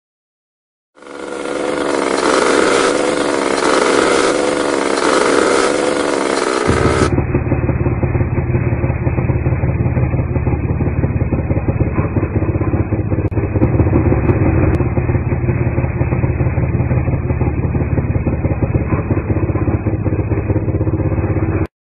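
Small motor vehicle's engine running steadily, its pitch wavering up and down at first. About six seconds in, the sound turns duller and more muffled and carries on steadily until it cuts off abruptly near the end.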